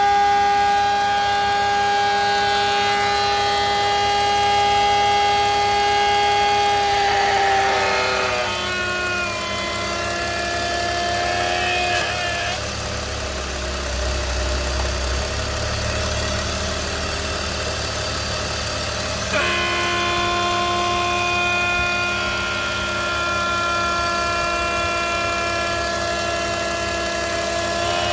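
BMW E46 325i's straight-six engine running with a steady, pitched whine-like hum; the tone drops in pitch about eight seconds in, mostly fades out for several seconds, and comes back suddenly about two-thirds of the way through. The noise changes with vacuum, which the owner suspects points to a noisy DISA valve or a vacuum leak.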